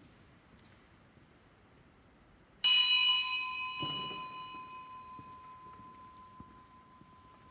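Sacristy bell struck once, signalling that the priest is entering to begin Mass; its bright ring fades slowly over several seconds, one tone lingering. A dull knock follows about a second after the strike.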